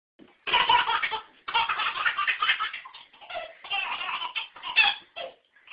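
A baby laughing hard in repeated bursts of belly laughter: a long peal about half a second in, another from about a second and a half, then shorter broken bursts.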